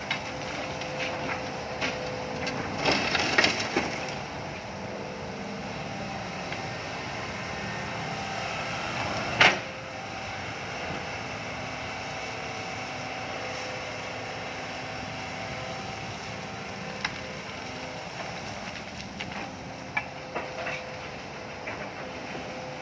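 Hydraulic excavator's diesel engine running steadily, with a burst of clattering knocks a few seconds in and one loud metallic bang about nine seconds in, then scattered clanks.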